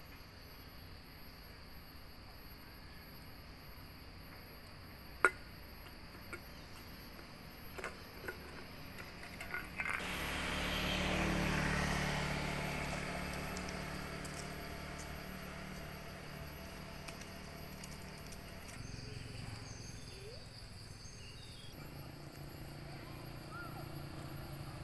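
Outdoor ambience with a steady high insect drone. A sharp click comes about five seconds in, then a few lighter knocks, and about halfway through a broad rushing noise swells up and slowly fades over several seconds.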